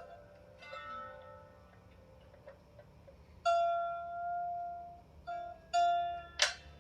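A single string of a 16-string lyre harp is plucked again and again at the same pitch and left to ring out, as it would be during tuning. Faint small ticks come between the plucks, and there is a sharp, bright pluck near the end.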